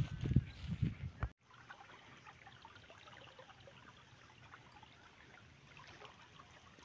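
Faint trickle of irrigation water flowing along a muddy earthen field channel into a wheat crop. A louder low rumble in the first second or so cuts off abruptly.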